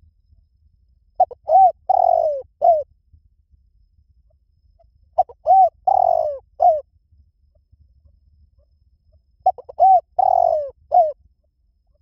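Spotted dove cooing: three matching phrases about four seconds apart, each a few short coos, a longer drawn-out note, and a final short coo.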